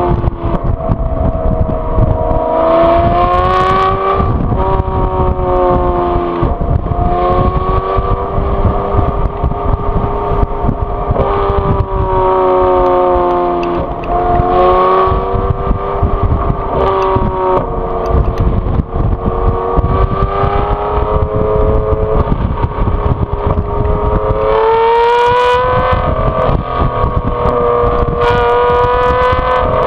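A 2014 Aston Martin V12 Vantage S's V12 engine, fitted with VelocityAP's Power Pack, heard at the exhaust while being driven hard. The exhaust note rises under throttle through the gears and falls on each shift or lift-off, several times over, ending in a long climbing pull near the end.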